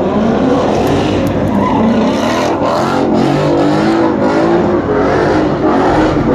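Dodge Charger R/T's 5.7-litre Hemi V8 running through its exhaust, its pitch wavering gently up and down.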